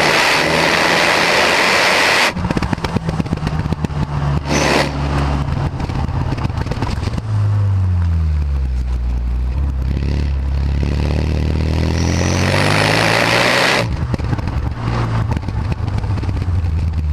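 Renault Mégane R26's 2.0-litre turbocharged four-cylinder engine running through its stock exhaust. The engine note holds steady, then drops in pitch for a few seconds and climbs again as the revs build, with loud rushing noise at the start and again at the top of the climb before it settles back.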